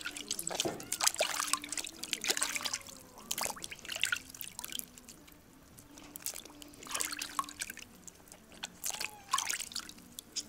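Water trickling and dripping in a kazan as cut beef feet are covered with warm water to soak, in irregular splashy bursts with a lull around the middle.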